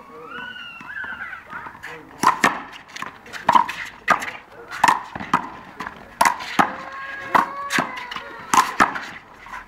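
A fast one-wall handball rally: the rubber ball slaps off players' hands, the concrete wall and the court surface. There are about a dozen sharp cracks, irregularly spaced, starting about two seconds in.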